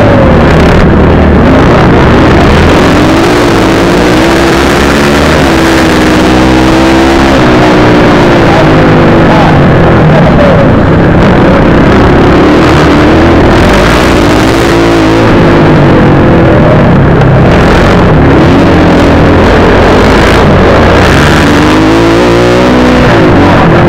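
250 cc motocross bike engine heard on board at racing speed, loud, its pitch rising and falling again and again as the throttle is opened and rolled off through the turns.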